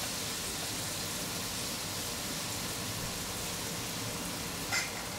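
Tomato purée sizzling in hot oil in a nonstick pan as it is stirred with a spatula, a steady even hiss, with one short click near the end.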